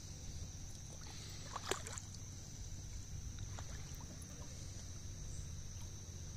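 Steady high-pitched chorus of crickets over a low, even rumble, with one brief click a little under two seconds in.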